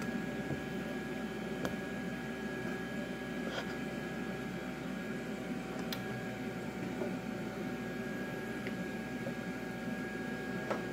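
Butter melting in a nonstick frying pan: a steady low hiss with a faint steady whine behind it, and a few light taps of a wooden spatula against the pan.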